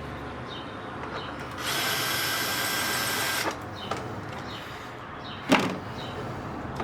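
Power drill-driver running for about two seconds, set at a low clutch setting for fastening plastic parts, followed a couple of seconds later by a single sharp knock.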